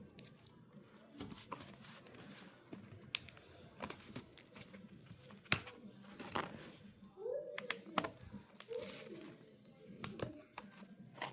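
Irregular clicks, taps and light scraping of small hard parts being handled on a work surface, with two short hums a little past the middle.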